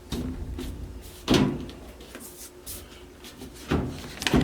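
Knocks and scraping of the dryer's control panel being slid into place and seated on the cabinet: a knock at the start, a louder one about a second in, and two more near the end.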